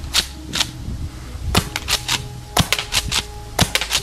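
Golden Eagle 8877RW gas airsoft pump shotgun, a metal Remington M870 replica, firing in three-BB mode about once a second. Each sharp pop is followed by a cluster of clacks from the pump action being racked.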